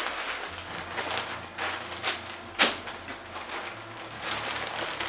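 Butcher paper rustling and crinkling as it is folded and creased by hand around a pork butt, with one sharp tap about two and a half seconds in.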